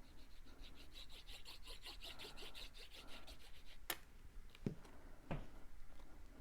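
Quick, rhythmic rubbing strokes on cardstock, about four or five a second, stopping after about three and a half seconds, followed by three light taps as paper pieces are handled.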